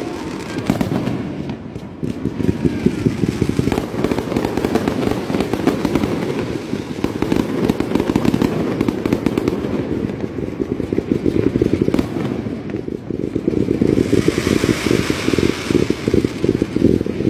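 Fireworks display: a dense, continuous barrage of bangs and crackling from many shells going off in quick succession. About fourteen seconds in, a higher hiss joins the bangs.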